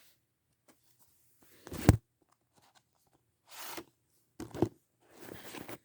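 Handling of a Blu-ray case and its cardboard slipcover: a sharp plastic tap about two seconds in, a second tap near the middle, and short rustles and slides of the packaging between them.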